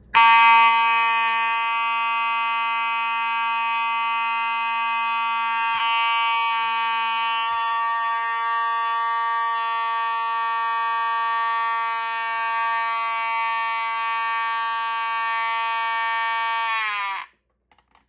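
Federal Signal Model 450D Series C2 fire alarm horn, an electromechanical vibrating horn, sounding one continuous, loud buzzing tone. Near the end its pitch sags slightly as the power is cut, and it stops.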